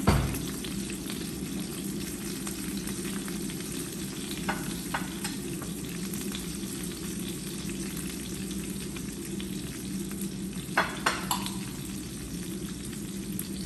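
Chicken pieces frying in hot oil in a pan, a steady sizzle over a low hum. There is a knock at the start, and a few sharp clicks of a utensil against the pan come about five seconds in and again near eleven seconds.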